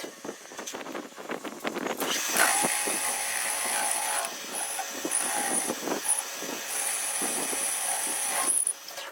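CNC lathe turning metal with a carbide insert: a rapid crackle of chips for the first couple of seconds, then a steady high-pitched cutting whine that breaks off a few times and stops near the end.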